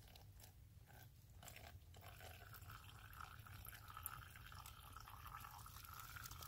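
Faint trickle of spring water running from a moss-covered pipe into a small plastic bottle, starting about a second and a half in.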